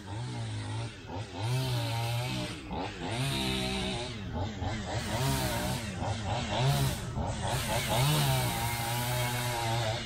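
Chainsaw revving up and falling back again and again as it cuts down trees, a steady noisy drone whose pitch rises and falls about once a second.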